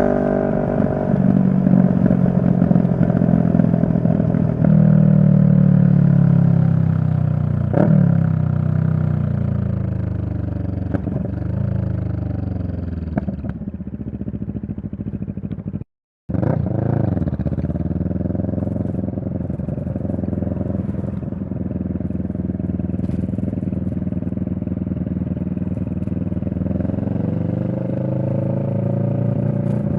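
CFMoto 650NK motorcycle's 649 cc parallel-twin engine heard while riding. The engine note sinks gradually as the bike slows, with a sharp click about eight seconds in. The sound cuts out for a moment just past halfway. Afterwards the pitch dips and recovers, holds steady, and rises near the end as the bike accelerates.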